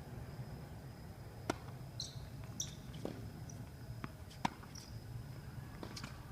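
Sharp knocks of a ball being struck and bouncing on a hard court during a rally, about six in all, with a couple of short high squeaks between them.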